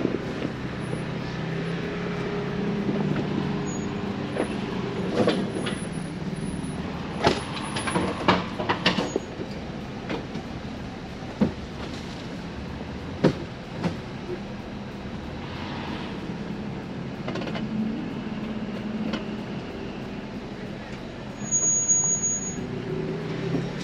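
Jeep engine running at low speed on an off-road trail. A cluster of sharp knocks and clunks comes about five to nine seconds in, and two more follow around eleven and thirteen seconds.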